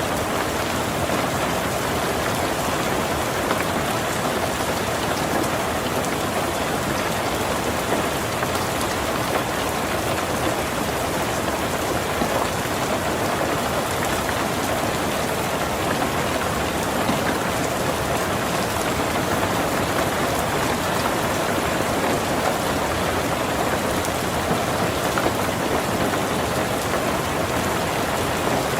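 Heavy rain falling steadily on a tin roof, a dense, even patter of drops.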